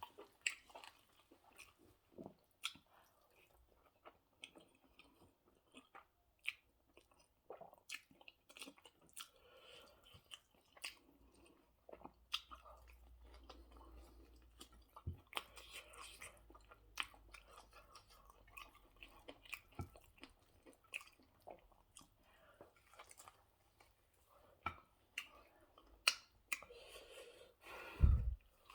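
A person chewing a mouthful of goat meat stew and rice close to the microphone: irregular wet mouth clicks and lip-smacks throughout. A loud low thud comes near the end.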